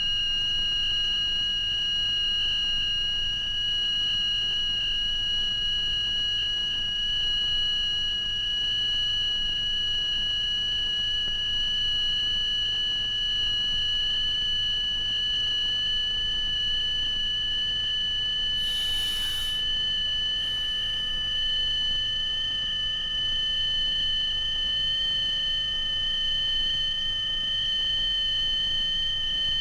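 Electronic sine-wave tone from a film soundtrack: a steady, piercing high whistle with fainter tones alongside, slowly rising in pitch. A brief hiss cuts across it about nineteen seconds in.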